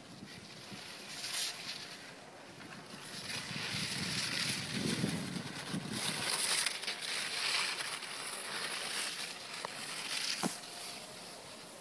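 Skis scraping and hissing over packed snow through mogul turns, in swells that are loudest through the middle.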